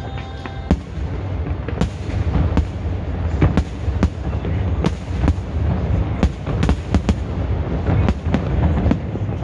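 Aerial fireworks shells bursting in a dense, continuous barrage: many sharp bangs and cracks, several a second, over a steady low rumble.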